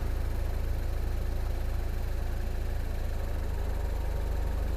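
Pontiac Solstice GXP's turbocharged 2.0-litre four-cylinder engine idling steadily, a low even hum heard from inside the cabin.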